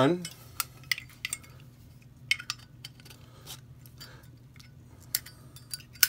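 Scattered sharp metallic clicks and taps from a butane insert being pushed into a Zippo lighter's metal case and the hinged lid being worked open and shut.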